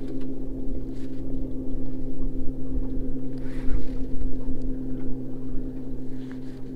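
A boat motor hums steadily, with wind rumbling on the microphone. There are a few light clicks as a baitcasting reel is handled close by.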